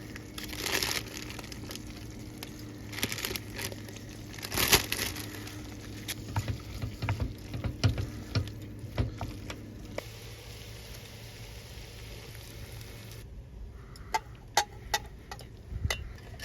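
Cooking and handling sounds in a small space: irregular rustling, scraping and light clatters of food and utensils over a steady hum. The hum cuts out about ten seconds in, followed by a few sharp clicks near the end.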